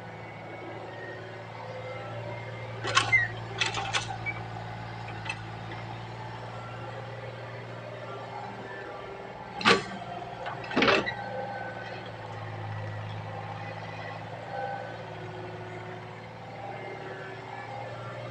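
Excavator's diesel engine running steadily at a low hum, with sharp knocks: three in quick succession about three seconds in, and two more about ten seconds in.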